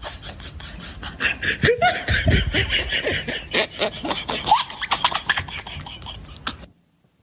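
Human laughter in quick rhythmic pulses that cuts off suddenly near the end.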